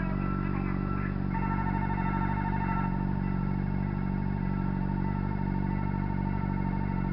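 Railway level-crossing warning bell ringing repeatedly, a high ringing tone that comes in about a second in, over a motorcycle engine idling steadily.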